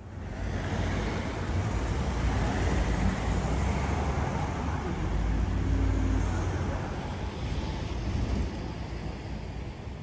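Road traffic: cars passing close by on a busy street, a dense rush of tyre and engine noise. It starts abruptly, swells through the middle and eases off near the end.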